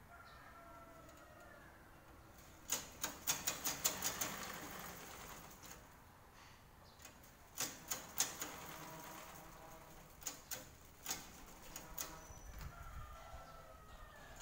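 Sewing machine stitching in a few short bursts of rapid clicks, stopping and starting again with pauses between.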